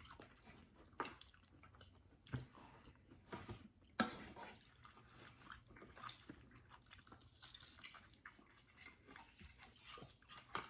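Faint close-miked chewing and mouth sounds while eating, with a few sharp clicks about one, two and a half and four seconds in.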